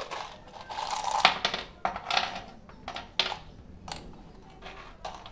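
Black steel screws rattling and clinking as they are tipped out of a clear plastic jar onto a plywood board, in several short bursts with single sharp clicks between them.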